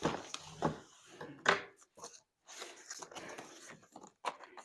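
Diamond painting kits and their packaging being handled and taken out of a box: irregular crinkling rustles with a few sharp knocks.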